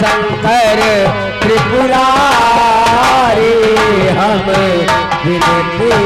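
Live nautanki folk-theatre music: a singer's wavering voice over hand-drum strokes and sustained instrumental tones.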